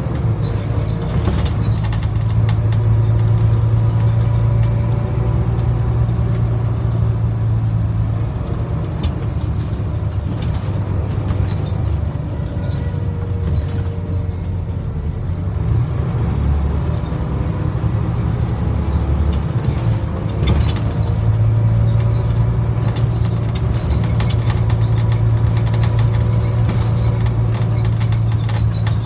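Scania OmniDekka double-decker bus under way, heard from inside the passenger saloon: a steady low engine drone, with faint whining tones that rise and fall as it speeds up and slows, and light rattling of fittings. The drone eases off for a stretch in the middle, then builds again.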